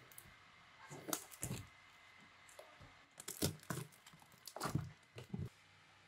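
Clear plastic stretch wrap on a cardboard parcel crinkling as the box is handled and turned over, in a string of short crackles with quiet gaps between them.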